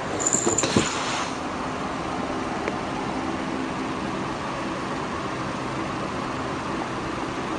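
A cat scrambles on a wooden floor and rustles into a cardboard box, a short crackling scuffle in the first second, followed by a steady low hum.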